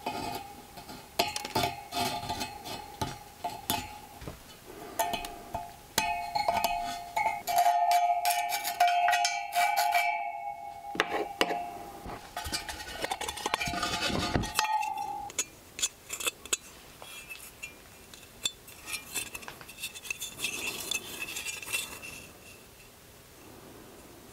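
Light metallic clinks and taps as a rusty Ford Model A wire-spoke wheel and its dented hubcap are handled, over background music with a held note that stops about fifteen seconds in; after that only scattered clinks remain.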